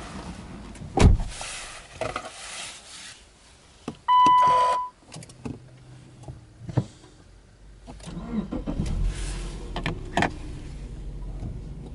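A heavy thump about a second in, then a single electronic chime about four seconds in. Around eight seconds in, the Subaru Legacy Outback 2.5i's flat-four engine is cranked and starts, then settles into a steady idle near 1,000 rpm.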